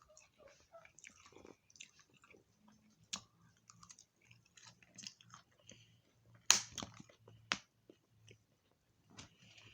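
Close-up chewing and mouth clicks of someone eating chicken and seasoned fries, with two sharp louder crunches about six and a half and seven and a half seconds in.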